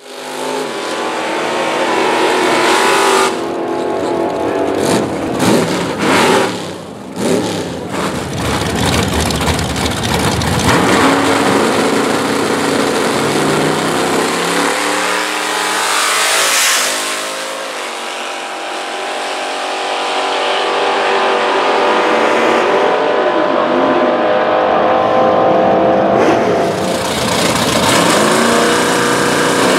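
Chevrolet Nova drag cars' V8 engines revving hard and idling, with a burnout near the start as the rear tyres spin in smoke. The engine pitch rises and falls repeatedly as the cars are blipped and staged.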